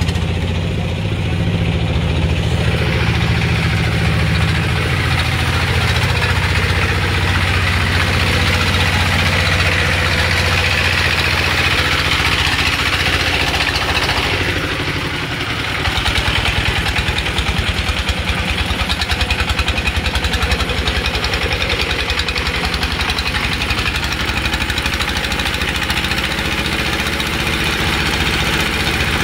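A wooden river boat's engine running steadily, with water rushing and splashing along the hull. About halfway through the engine's rapid, even beat comes through more strongly.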